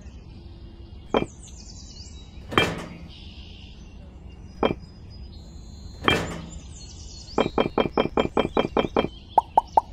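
Miniature fired-clay bricks knocking and clicking as they are dropped onto a pile one at a time. Near the end, a quick run of clicks sounds as several bricks tumble together.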